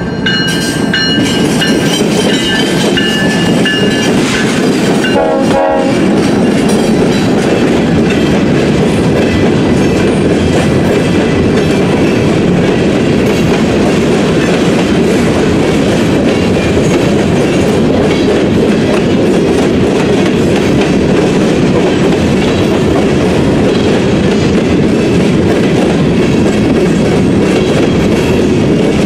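Union Pacific diesel locomotive's air horn sounding a steady chord for the first four seconds or so as the lead units pass. After that comes the steady wheel-on-rail noise of a long string of open-top freight cars rolling by.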